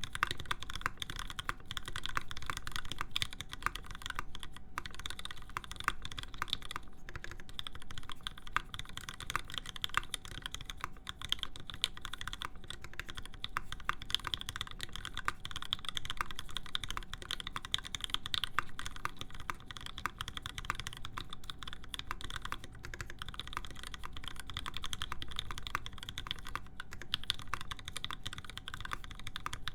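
Continuous fast typing on a custom mechanical keyboard: lubed Alpaca linear switches in a full aluminium plate, under thick PBT keycaps, giving a steady stream of muted key clacks with a few brief pauses.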